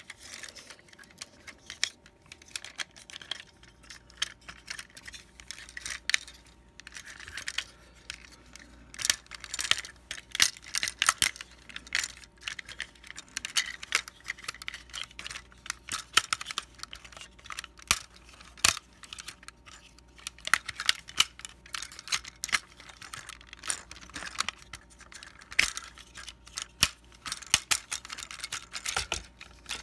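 Plastic Transformers Titans Return Six Shot figure being transformed by hand: a dense, irregular run of clicks, snaps and rattles as its plastic parts are moved and pegged into place.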